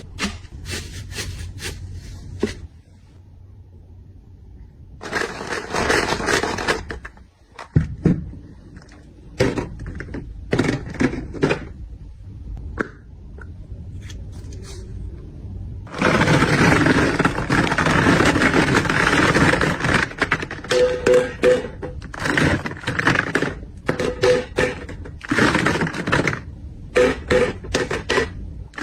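Items being handled and packed: rustling, scraping and clicking in short bursts, with a longer stretch of steady rustling about halfway through.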